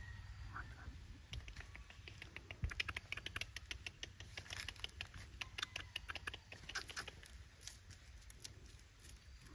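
Faint, irregular crackling rustle of dry leaves and grass: many small clicks starting about a second in, over a low steady background rumble.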